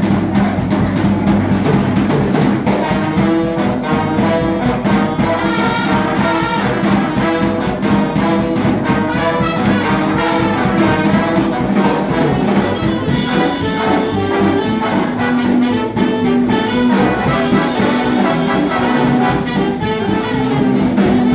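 A big band playing jazz live: saxophones, trumpets and trombones in ensemble over upright bass and drums.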